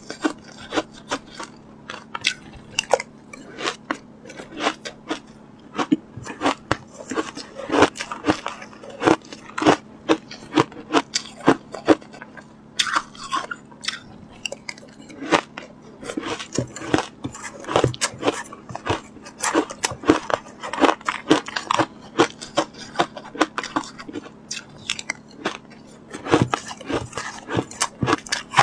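Shaved ice bitten and chewed close to a lapel microphone: a continuous run of rapid, crisp crunches and crackles.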